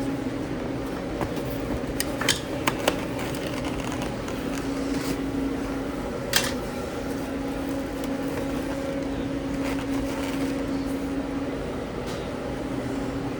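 Steady hum of kitchen machinery, such as ventilation or refrigeration, with a few sharp clicks and knocks of utensils or containers about two to three seconds in and again a little after six seconds.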